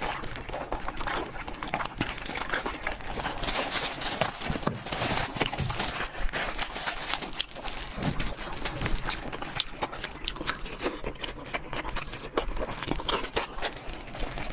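Close-miked eating sounds: chewing and mouth smacks in a dense, irregular run of clicks.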